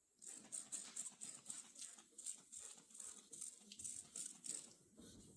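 Wet sanding of a Buick Centurion hood's paint with 1200-grit paper on a sanding block: quick back-and-forth scrubbing strokes, about three a second, that stop near the end.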